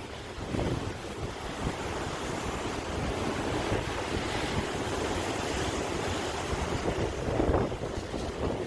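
Sea waves washing and breaking in a continuous rush, swelling louder about half a second in and again near the end, with wind buffeting the microphone.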